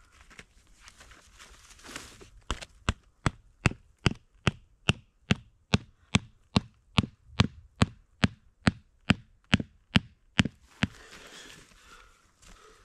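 Hatchet chopping at a small wooden stick, cutting a point on a tent stake: a steady run of about twenty sharp, even strikes, roughly two and a half a second, starting a couple of seconds in and stopping near the end.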